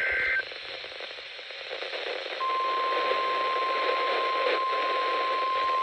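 Emergency alert broadcast over a weather radio receiver: the last of a digital data burst cuts off right at the start, static hiss follows, and about two and a half seconds in a single steady alert tone begins over the hiss, the NOAA Weather Radio warning tone that precedes the spoken warning.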